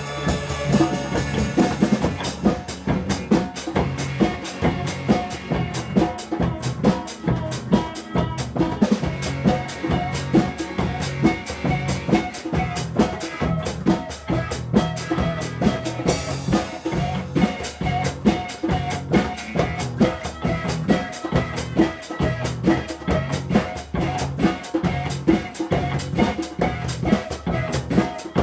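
A band jamming: a drum kit keeps a steady beat with bass drum, snare and rimshots under sustained pitched instruments, with a cymbal crash about sixteen seconds in.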